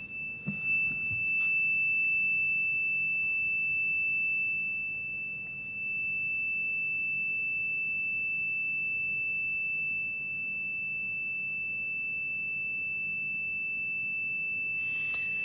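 A digital multimeter's continuity beeper sounding one steady high-pitched tone, held while its test leads rest across a near-zero resistance of about 0.4 ohms.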